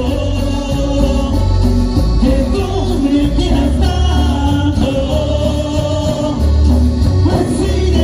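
Live band music with a heavy bass beat, electric guitar and singing.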